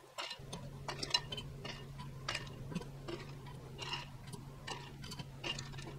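Tongs clicking against hard-boiled eggs and the pressure cooker's steel rack as the eggs are lifted out and dropped into a glass bowl of ice water: light, irregular clicks and taps, one or two a second, over a low steady hum.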